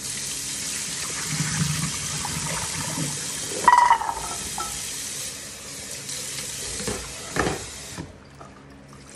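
Kitchen faucet running steadily into a sink as raw peanuts are rinsed and tipped into a saucepan, with a short ringing clatter just under four seconds in and a knock around seven seconds in. The tap shuts off about eight seconds in.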